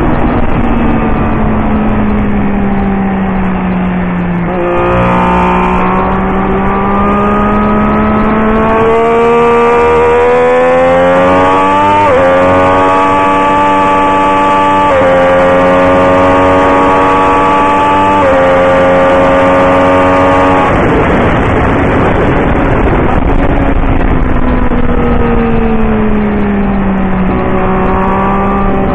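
Sport motorcycle engine heard from on board at racing speed. The note sags at first, then climbs hard under full throttle from about five seconds in, with upshifts about twelve, fifteen and eighteen seconds in. About two-thirds of the way through the throttle closes and the note falls away, then it picks up again near the end, all over a steady rush of wind.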